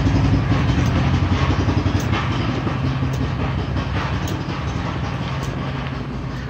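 Honda 340cc single-cylinder engine of a chuck wagon idling steadily after being pull-started, its level easing down slightly.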